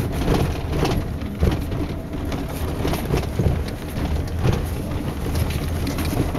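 A car driving over a bumpy dirt road: a steady low rumble from the tyres and engine, with frequent knocks and rattles as it jolts, the hardest about a second and a half in.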